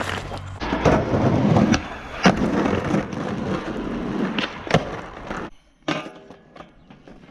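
Skateboard wheels rolling over rough asphalt, a steady gritty rumble with two sharp clacks from the board. The rolling cuts off suddenly about five and a half seconds in.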